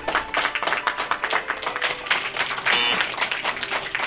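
Background music with dense clapping throughout, over a few held notes, and a short bright hiss about three seconds in.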